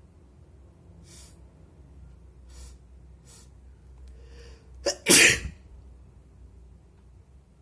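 A person's wet sneeze: a few short breaths in as it builds, then one loud sneeze a little after the five-second mark.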